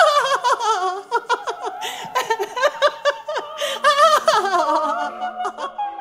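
A woman laughing heartily in long, rippling bouts that fade away near the end.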